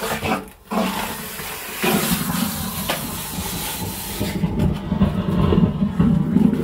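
A septic-pumping vacuum hose sucking sludge out of a septic tank. It makes a loud hissing rush of air and muck, turning to a lower, uneven gurgle in the second half.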